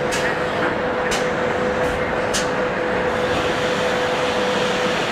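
Utien banner hem welding machine running its folding step after the foot pedal is pressed: a steady hum with a held high tone that stops shortly before the end, and three sharp clicks in the first couple of seconds.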